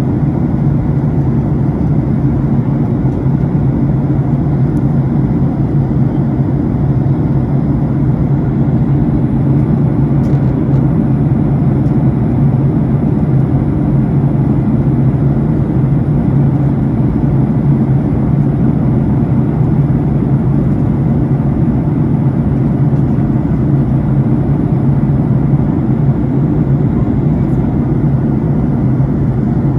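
Cabin noise of a jet airliner: a loud, steady low drone with a strong hum that stays unchanged throughout.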